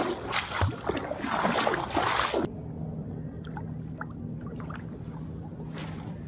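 Legs wading through shallow seawater, a swishing slosh with each stride. About two and a half seconds in it cuts off suddenly to a quieter steady low hum with a few faint ticks.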